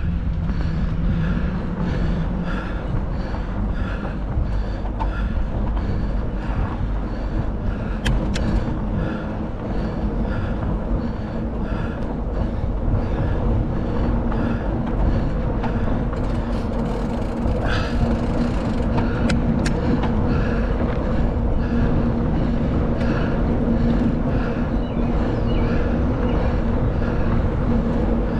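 Tyres rolling over a dirt gravel road, with wind on the microphone. Underneath are a faint regular ticking, about twice a second, and a steady hum that comes in about halfway through.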